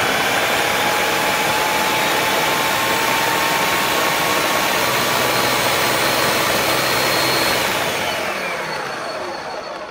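Ninja food processor motor running at full speed, its blade churning soft cooked pears into a purée. About eight seconds in it is switched off and winds down, the whine sinking and fading.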